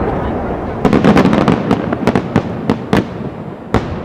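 Aerial firework shells bursting: a rolling rumble, then a rapid string of sharp bangs from about a second in, with two louder single reports near the end, each trailing an echo.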